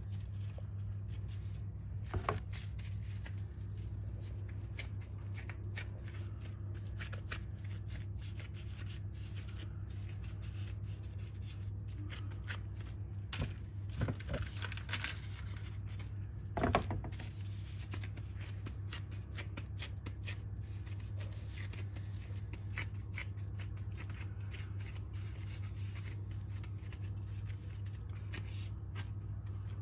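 Disposable-gloved hands shaping raw minced beef into burger patties on parchment paper: a stream of small irregular crinkles and clicks, with a few louder knocks about two, fourteen and seventeen seconds in. A steady low hum runs underneath.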